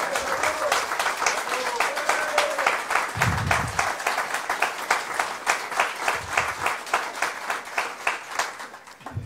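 Audience applauding, with the claps falling into a regular beat. The applause dies down near the end.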